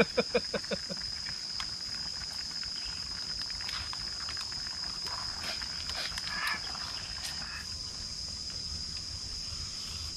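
Steady, high-pitched drone of insects, with scattered light clicks and taps from bowls and chopsticks. A quick string of voices in the first second.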